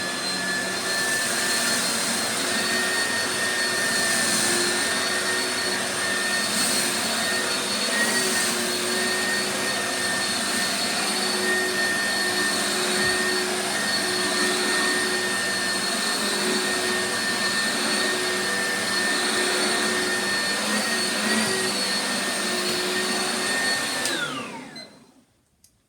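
Oreck Founder Series upright vacuum cleaner running steadily with a high motor whine as it picks up a test mess. Near the end it is switched off, and the whine falls away as the motor spins down.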